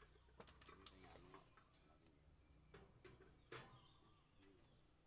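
Near silence: faint outdoor room tone with a low hum and a few soft clicks, the loudest about three and a half seconds in.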